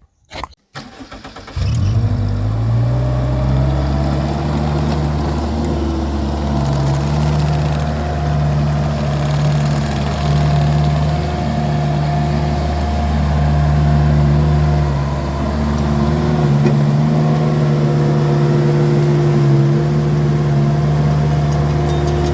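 Vermeer mini skid steer's engine starting up about a second and a half in, rising in pitch as it comes up to speed, then running steadily.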